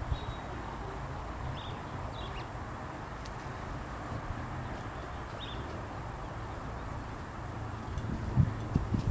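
Steady low outdoor background rumble with a few faint, short high chirps scattered through it, and a couple of soft low thumps near the end.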